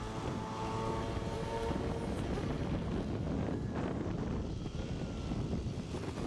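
Wind buffeting the microphone over the steady running of the small engine of a vehicle being ridden, with a steady whine in the first two seconds or so.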